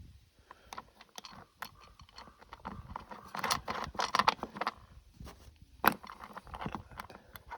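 Irregular metal clicks, taps and clinks of roof-rack brackets, bolts, washers and nuts being handled and fitted into a roof rail, with one sharp click about six seconds in.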